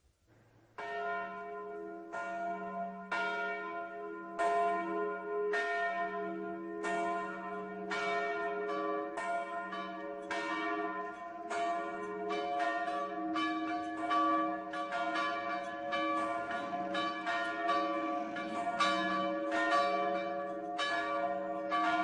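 Church tower bells, at least two, driven electrically, begin about a second in and ring a continuous, overlapping peal. Each stroke hangs on under the next. This is the ringing used in the village as a death knell.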